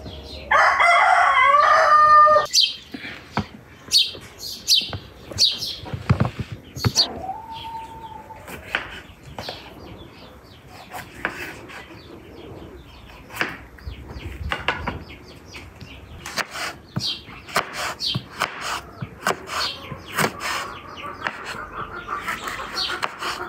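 A rooster crows loudly once, starting about half a second in. After that a knife clicks and taps on a wooden cutting board as vegetables are sliced, while chickens cluck now and then.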